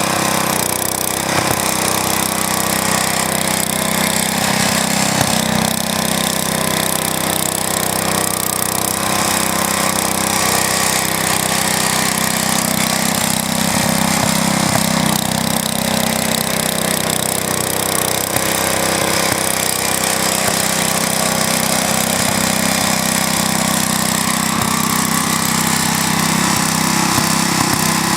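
Wheel Horse garden tractor's small engine running steadily.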